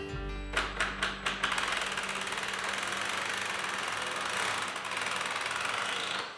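A handheld power tool running steadily with a fast chattering rhythm. It starts after a few knocks and stops just before the end.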